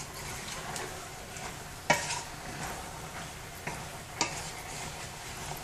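Wooden spoon stirring chicken gizzards in tomato sauce in a large pan, over a steady sizzle from the hot pan. A few sharp knocks of the spoon against the pan, the loudest about two seconds in and another near four seconds.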